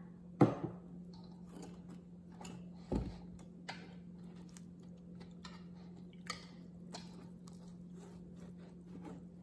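Wire whisk stirring dry sugar and flour in a stainless steel bowl: soft crunchy scraping and small ticks of the wires against the bowl. A sharp clack near the start and a duller knock about three seconds in, over a faint steady hum.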